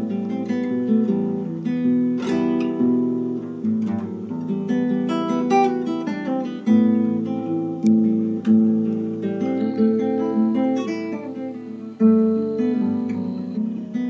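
Nylon-string classical guitar played fingerstyle: a melody of plucked notes over lower bass notes, each note ringing briefly before the next.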